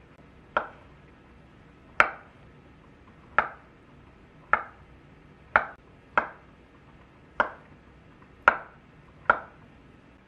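Chef's knife slicing through a peeled avocado and knocking on a wooden cutting board: nine sharp knocks, about one a second.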